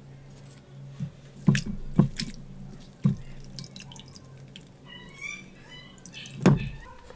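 Wet batter dripping and splashing from a plastic draining basket of battered tofu cubes as it is lifted out of the batter bowl and drained. Several sharp knocks of the basket and bowls are heard, the loudest near the end, over a low steady hum.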